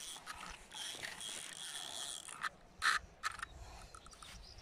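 Spinning fishing reel working under the pull of a hooked carp: a steady mechanical whir, then a few sharp clicks past the middle, one of them much louder than the rest.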